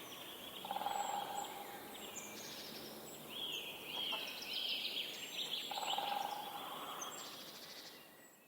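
Several birds calling and singing, with overlapping high, repeated gliding phrases, fading out near the end.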